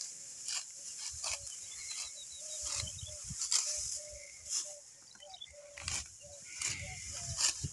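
Wheat, still green and unripe, being cut by hand: a crisp rustling swish of stalks roughly once a second.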